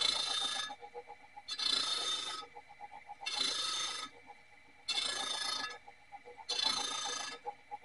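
Hand-sharpening strokes along the edge of a large circular meat-slicer blade: five even rasping strokes about a second and a half apart. A faint rapid ticking sounds between the strokes.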